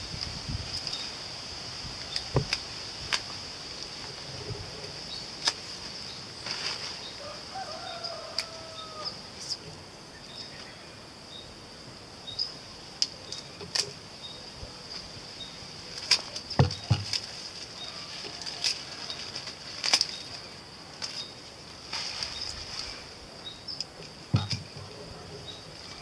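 Scissors snipping broccoli leaves off the plants, with the leaves rustling: scattered sharp clicks and a few low thumps over a steady high-pitched hum.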